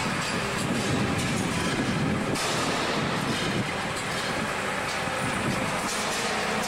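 New Holland skid-steer loader's engine running steadily as the machine works with its forks.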